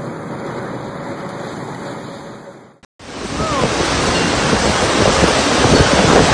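A steady rushing noise that fades out to a brief silence midway. Then loud tornado wind driving heavy rain sets in, growing louder, with gusts buffeting the microphone.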